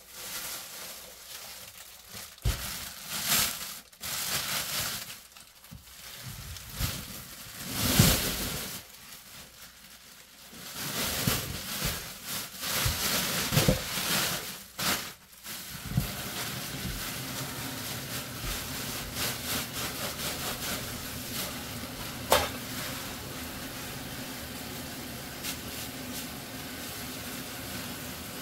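Thin plastic bags crinkling and rustling in irregular bursts as they are handled in a stainless steel sink. About 16 seconds in, a kitchen tap starts running steadily into the sink, with one sharp click a few seconds later.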